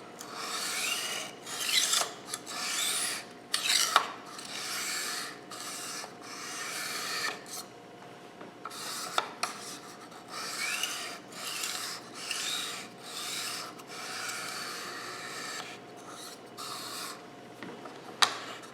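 Kitchen knife edge scraping over an Arkansas soft stone in repeated honing passes, each stroke a short rasp with brief pauses between, and a few sharp clicks as the blade is set down or repositioned.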